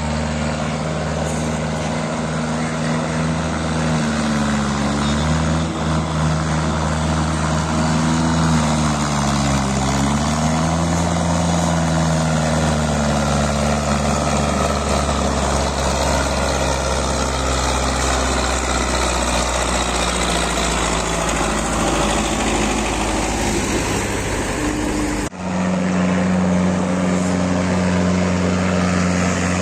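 Belarus tractor's diesel engine running while pulling a heavily loaded trolley, its pitch dipping and rising as the revs change. About 25 seconds in the sound cuts abruptly to a steadier engine note.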